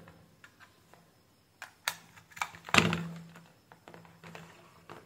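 Small plastic clicks and cable rustle from handling a USB tester and charger cable, with a few sharp clicks about two seconds in and a louder short knock just before the middle.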